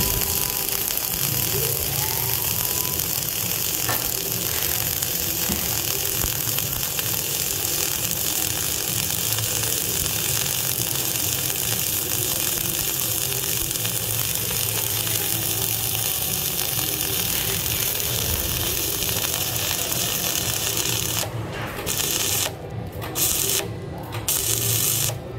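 Self-shielded flux-core welding arc (Lincoln NR-305 wire, 5/64 in) crackling and hissing steadily as it burns. Near the end the sound cuts out briefly several times as the arc stops and restarts.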